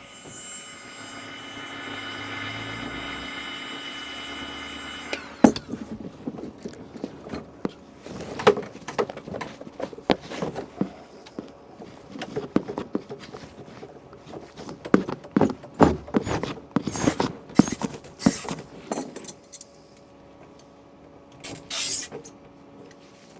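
Heat gun running steadily for about five seconds while shrinking heat-shrink tubing over a wire splice, then switched off with a sharp click. After it come many irregular clicks and knocks of tools and parts being handled, and two short hisses near the end.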